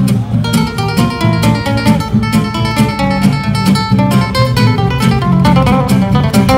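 Two acoustic guitars played together live: a quick run of picked notes over strummed chords and a full bass line.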